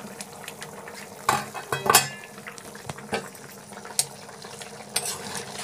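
Thick horse gram curry boiling in a pan, a steady bubbling with several sharp pops and clicks, the loudest about two seconds in.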